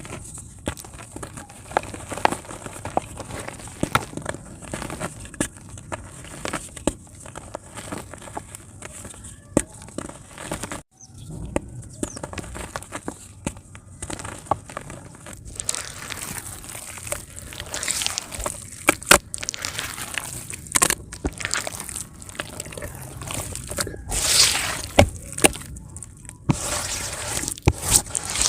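Dry multani mitti (fuller's earth clay) crumbling in water: many small crackles and clicks over a watery fizz. It breaks off briefly about 11 seconds in, and the crackling grows denser and louder in the second half.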